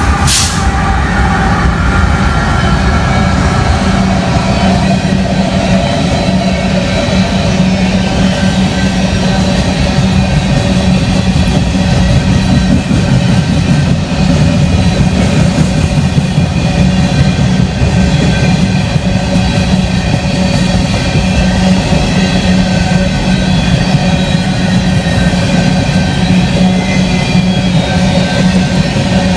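BNSF freight train rolling past close by with a continuous loud rumble of wheels and cars, its horn trailing off during the first few seconds.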